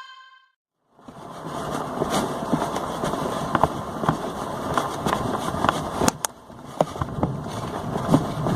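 Outdoor street noise: a steady rush of traffic with scattered clicks and knocks, starting about a second in after a moment of silence.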